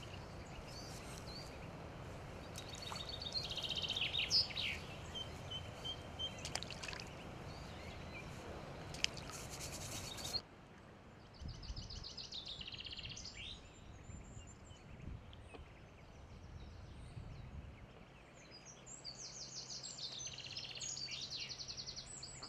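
Outdoor ambience of small birds singing in short repeated trills and chirps, over a low steady rumble of wind that drops off suddenly about ten seconds in.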